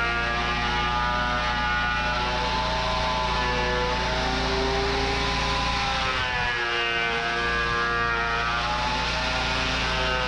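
12-inch Delta thickness planer running steadily, a loud motor whine over a low hum; its pitch dips and recovers about six seconds in.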